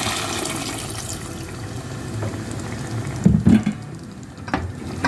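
Water being poured into a hot pan of cooked tomatoes and potatoes. A couple of dull knocks, the loudest sounds, come a little past three seconds in, followed by a few light clicks.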